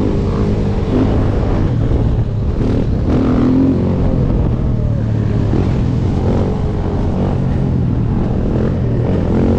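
Sport ATV engine running under throttle as it rides, its pitch rising and falling a few times as the revs change, with other dirt bike engines close by.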